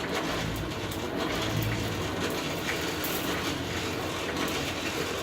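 Lump hardwood charcoal burning in a forge under a fan-driven air blast: a steady rush of blown air through the fire with frequent sharp pops and crackles as the charcoal throws sparks.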